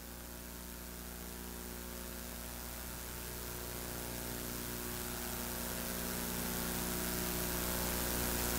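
Steady electrical mains hum with a hiss over it, slowly growing louder.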